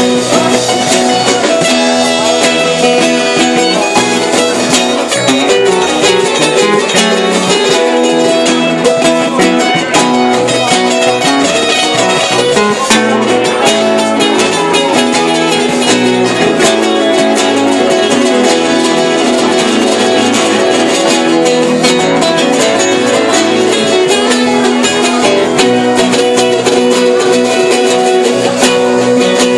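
Live band playing a loud instrumental passage, guitar out front over a drum kit.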